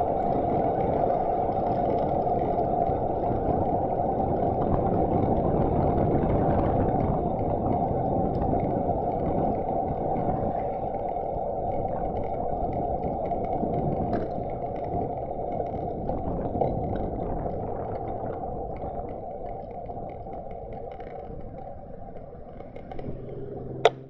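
Steady road and wind rumble picked up by a helmet camera on a moving touring bicycle, with the wind noise filtered down, growing gradually quieter. A single sharp click sounds just before the audio cuts off suddenly.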